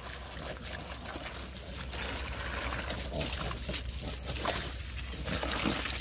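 Garden hose running, its water splashing steadily onto wet, muddy ground, growing a little louder after about two seconds.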